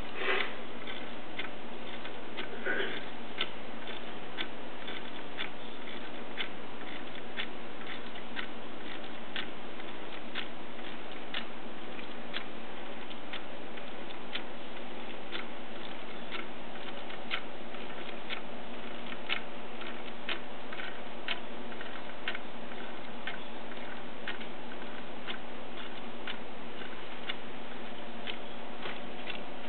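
Wooden-geared electromagnetic Toucan clock ticking steadily, its gears and escapement giving a regular train of sharp wooden clicks. A couple of brief louder noises come in the first few seconds.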